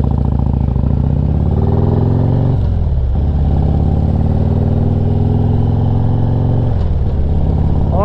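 Harley-Davidson Street Glide's V-twin engine accelerating through the gears. The pitch rises, drops at an upshift about two and a half seconds in, rises again and drops at a second upshift near the end.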